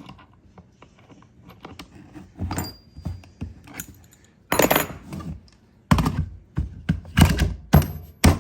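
Irregular knocks, clicks and clunks of tools and wood being handled, with loud thunks about four and a half seconds in and a quick run of them from about six seconds on; no router motor is running.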